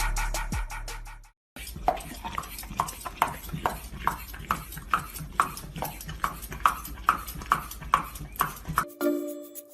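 Regular hard knocks, about two and a half a second, like clip-clopping steps, over a low steady hum. Background music is heard briefly before the knocking starts.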